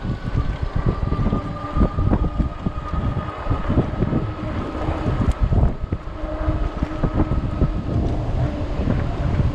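Wind buffeting the microphone of a camera on a moving fat-tire e-bike, a constant irregular low rumble and flutter. A faint steady high whine runs underneath.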